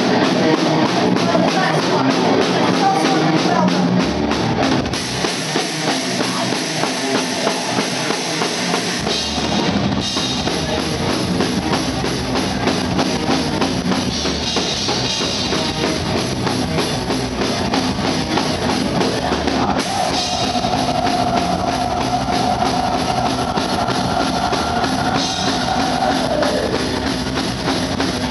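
Metal band playing live: distorted electric guitars, bass and drum kit, loud and dense throughout. The deepest low end comes in about nine seconds in, and from about two-thirds of the way through a long held note rings over the band and slides down near the end.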